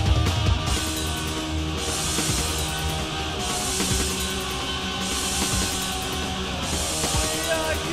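Instrumental passage of a heavy rock song: distorted electric guitar, bass and drums, with no vocals. Washes of high hiss come and go about every second and a half.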